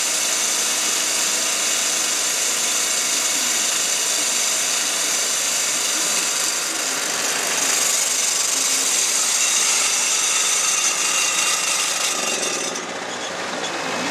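Concrete core drill and wet vacuum running together during a cut: a steady machine noise with a high whine. The level dips slightly and the highest hiss cuts off about 13 seconds in.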